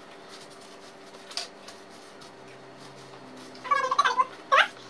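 A quiet room with a faint steady hum, then, near the end, a few short high-pitched cries whose pitch bends up and down.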